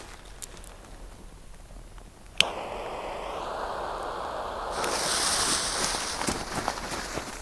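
A torch lighter clicks about a third of the way in and its flame hisses steadily as it lights a firecracker's fuse; from a little past halfway the lit fuse hisses and sputters, brighter and sharper.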